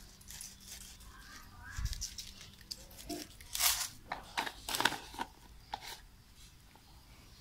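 Rustling and crinkling with scattered sharp crackles, irregular and faint, as a packet of seasoning is handled and toasted ground rice is sprinkled over the bowl.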